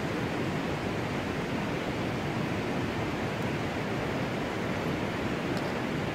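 Steady, even rushing noise with no distinct events, heaviest in the low range.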